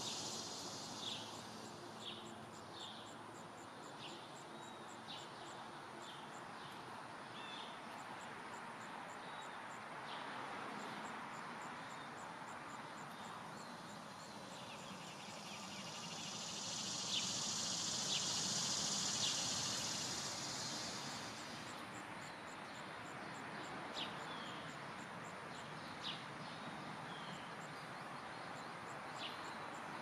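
Summer woodland ambience: insects buzzing steadily, the buzz swelling louder for several seconds past the middle, with a faint regular high ticking about twice a second. Short bird chips and calls come now and then over a steady low background noise.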